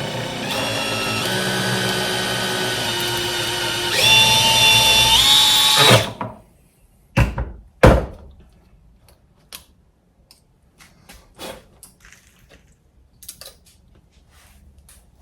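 Cordless drill motor running for about six seconds, its whine stepping up in pitch and getting louder about four seconds in, then stopping; two sharp knocks follow, then light clicks of handling.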